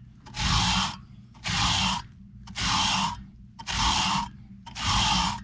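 A brush scrubbed up and down across the fins of an outdoor air-conditioner coil, five rasping strokes about one a second, working foamed coil cleaner into stubborn dirt.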